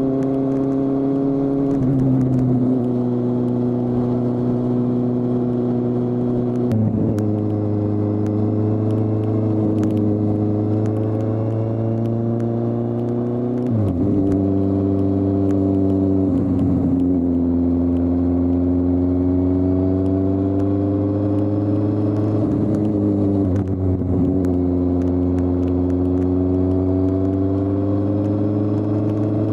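A 2015 Kawasaki Z800's inline-four engine running under way as the motorcycle is ridden. The engine note rises and falls, with several sudden changes in pitch as the throttle is closed and opened and gears are changed through the bends.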